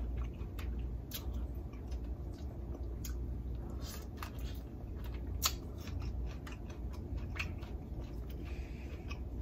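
Close-miked mouth sounds of a person eating spicy seafood boil: chewing with scattered wet clicks and smacks, and one sharper click about five and a half seconds in.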